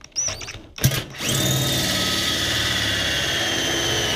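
Cordless drill driving a 42 mm carbide hole saw through a stainless steel fermenter lid. A few short sounds and a sharp knock come first. About a second in it settles into a steady, loud cut with a high whine that slowly sinks in pitch.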